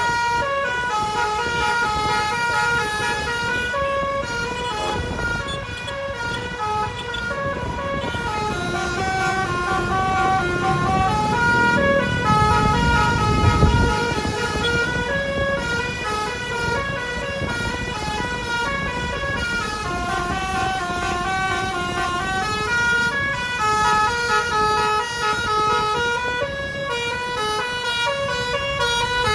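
Bus's basuri telolet musical air horn playing a long melody, note after note stepping up and down in pitch without a break. A low engine and road rumble swells about halfway through.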